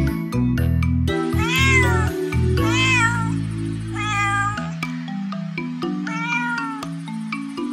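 Domestic cat meowing several times, each meow rising and then falling in pitch, over background music.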